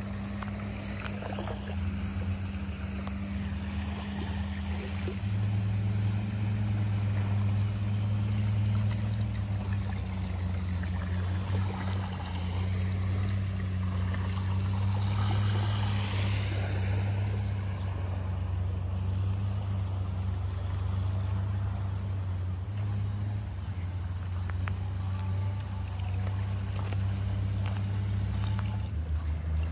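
Longtail boat engine running with a steady low drone that shifts slightly in pitch a few times.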